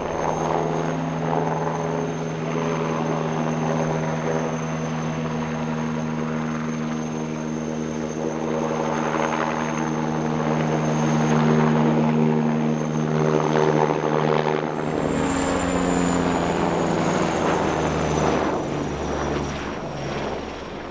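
Eurocopter Tigre attack helicopter flying its display: the rotor drone and a high turbine whine from its twin turboshaft engines. About fifteen seconds in the pitch shifts, the whine stepping up and then slowly falling while a lower rumble grows.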